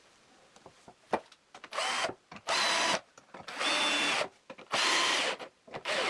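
Power drill-driver driving screws into a wooden strip in five short runs of under a second each, after a single click about a second in.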